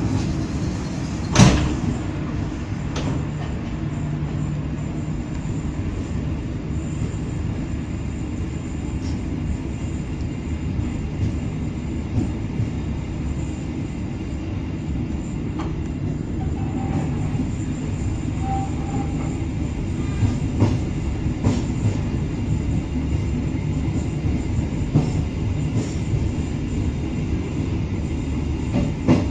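Passenger train running, heard from inside the coach: a steady low rumble of wheels on track. A sharp clack comes about a second in, and fainter clicks follow now and then.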